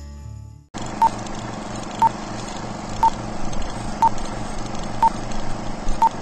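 Film-leader countdown sound effect: a steady projector-like whir and hiss with a short beep once a second, six beeps in all. The tail of a song fades out under a second in.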